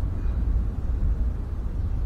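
Steady low outdoor rumble with no distinct bird calls.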